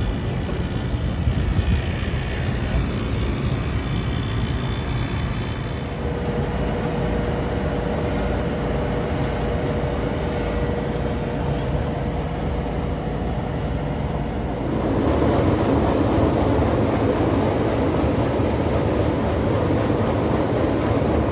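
Steady machinery drone with a low rumble and a faint steady hum; about 15 seconds in it grows louder and rougher.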